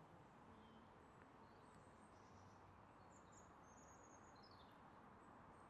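Near silence: faint outdoor background hiss, with a few faint, high bird chirps around the middle.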